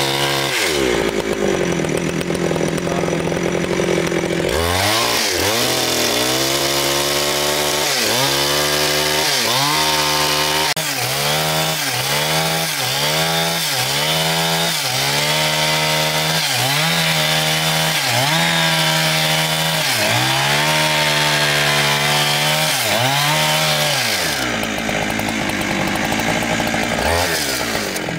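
Chainsaw cutting through a large log, its engine running loud and continuous. After a few steady seconds its pitch begins dropping sharply and climbing back about once a second as it works the cut, then settles steady again near the end.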